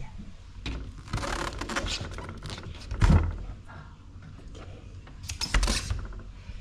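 Small bar fridge door being opened and shut by hand: rustling and handling, a dull thump about three seconds in as it comes open, and a short clatter of knocks near the end as it closes.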